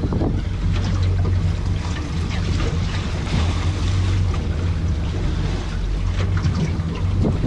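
A boat's engine running steadily, with the noise of water and wind around it.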